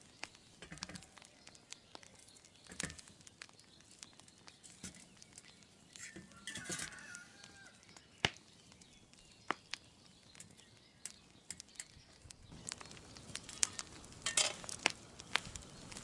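Kitchen knife slicing sucuk on a stainless steel plate: scattered light clicks and taps of the blade and plate.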